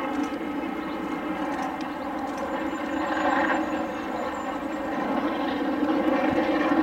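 LMS Royal Scot class 4-6-0 No. 46115 'Scots Guardsman' working hard with a train on a climb, its exhaust and running gear blending into a steady drone that grows louder near the end.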